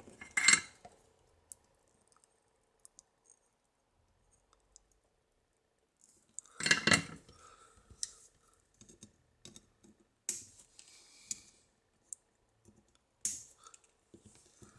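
Scattered light clicks and short knocks of a small circuit board being handled and set down on a bench, with quiet gaps between; the loudest comes about seven seconds in.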